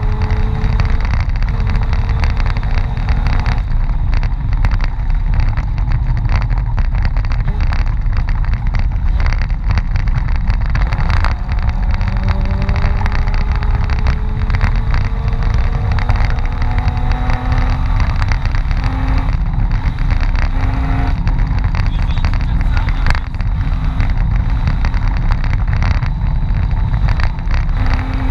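Mitsubishi Pajero's engine running hard under load on a snowy off-road rally stage, its pitch climbing slowly and dropping back several times as it is driven through the gears, over a heavy rumble with frequent knocks and jolts from the rough track.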